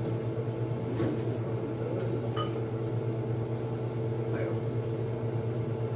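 Steady electrical hum of a running microwave oven, with one short ringing clink about two and a half seconds in.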